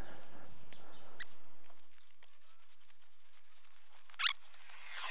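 Long-pole paint roller spreading concrete sealer over a concrete pad: a faint wet rolling noise, a short high squeak that slides down in pitch near the start, a sharp click about four seconds in, and a fizzing crackle near the end.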